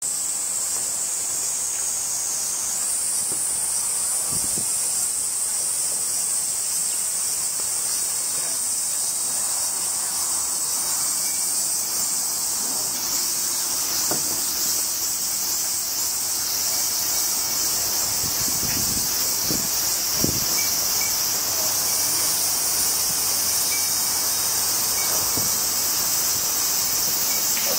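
A steady, shrill chorus of summer insects, stepping slightly higher in pitch a few seconds in, with a few soft knocks in the middle and later on.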